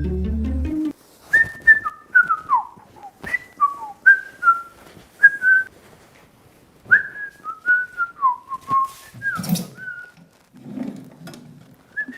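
A tune whistled in short notes, some sliding up or down, in phrases with pauses, opened by a brief low hum in the first second.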